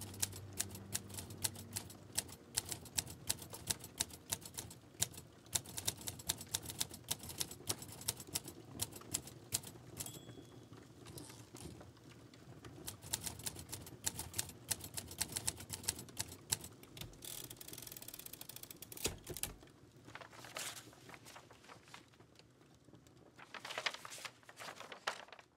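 Keys being typed in quick, irregular clicks, with a short ringing ding about ten seconds in; the typing thins out to a few scattered clicks near the end.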